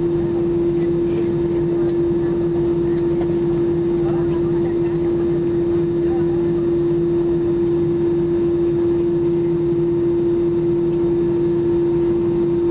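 Steady cabin drone of an Airbus A320 taxiing after landing, heard from inside the cabin, with a constant hum over it.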